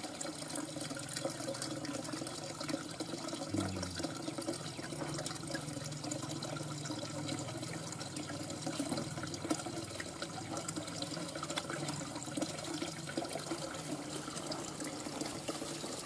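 Steady sound of running, trickling water.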